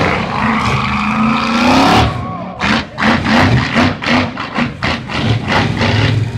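Monster truck engine revving hard, rising in pitch, then blipped in quick bursts of throttle about four times a second.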